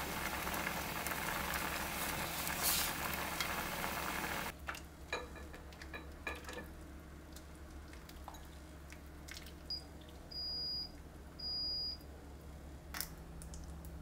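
Oil sizzling in a hot frying pan for the first four and a half seconds. After that it is much quieter, with a few light clinks of a ladle against a pot and two short, high electronic beeps near the end.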